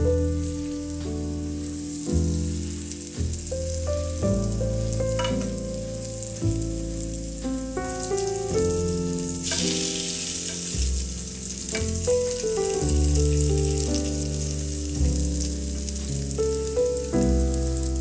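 Cabbage pancakes frying in olive oil in a pan, a steady sizzle that grows louder about halfway through, under background music with a bass line.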